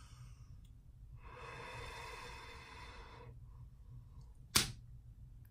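A person lets out one long, tired, breathy exhale lasting about two seconds, followed a second later by a single sharp click.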